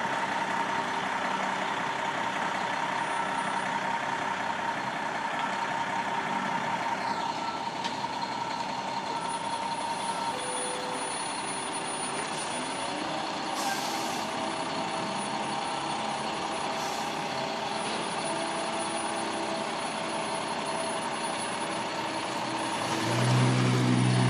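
Heavy concrete mixer truck running steadily, an even engine drone with a thin steady tone over it. Near the end a louder low hum comes up for a couple of seconds.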